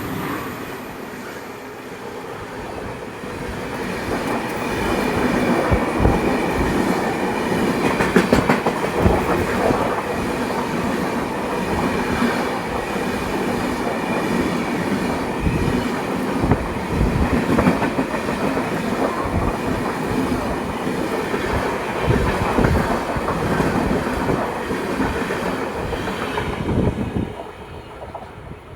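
Express passenger train's coaches rolling past, with a steady rumble and irregular clacks of the wheels over rail joints; the sound builds over the first few seconds and fades near the end as the train moves away.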